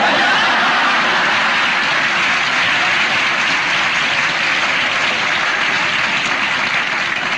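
Studio audience applauding and laughing after a punchline, a steady wash of clapping that eases off near the end.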